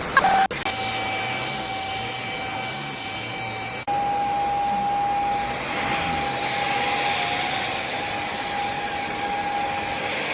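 Handheld mattress vacuum cleaner running with a steady motor whine and rushing air. The sound breaks off abruptly about half a second in and again about four seconds in.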